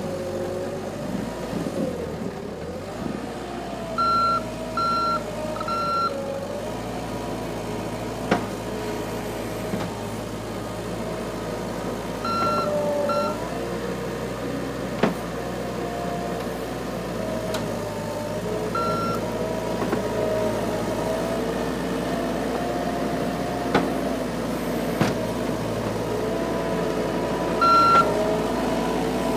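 Bobcat 753 skid-steer loader working, its diesel engine running with the pitch rising and falling as it revs. Its reversing alarm beeps in short runs: three beeps a few seconds in, then pairs and single beeps later. A few sharp knocks come in between.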